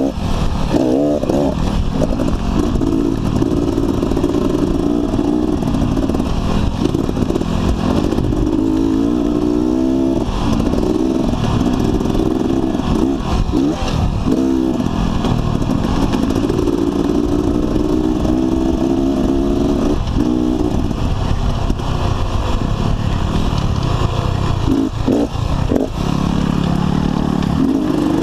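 Off-road motorcycle engine running under way, heard from on the bike itself, its pitch rising and falling again and again with the throttle, over steady ride noise.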